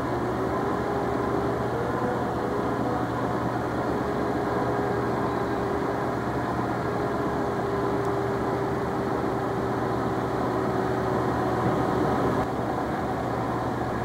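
Small hydrogen-driven turbine and generator of a metal hydride heat engine running with a steady hum and a faint whine that wavers slightly in pitch, powered by hydrogen released as the hydride coil heats in hot water. The sound drops a little in level near the end.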